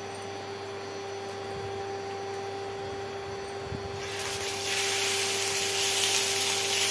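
Marinated soya chaap pieces going into hot mustard oil in a frying pan start to sizzle about four seconds in, and the sizzle grows louder a moment later. Under it is the steady hum of an induction cooktop.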